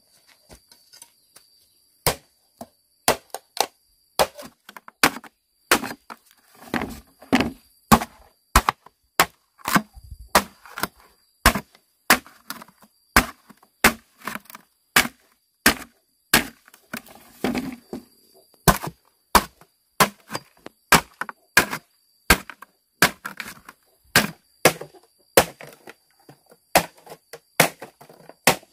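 Machete chopping into a green bamboo pole on a wooden stump: a long run of sharp blows, about one and a half a second, as the pole is split lengthwise, with the bamboo cracking and splintering between some strokes.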